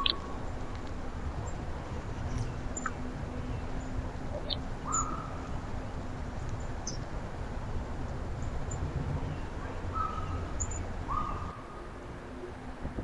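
Wild birds calling: four short mid-pitched calls spaced a few seconds apart, with a few brief high chirps in between, over a faint steady hum.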